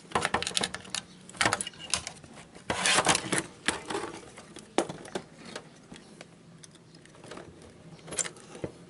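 Clicks, taps and rattles of a CRT television's circuit board and hand tools being handled as its flyback transformer is desoldered and worked loose. The clicks come thick and fast for the first few seconds, then thin out to scattered taps.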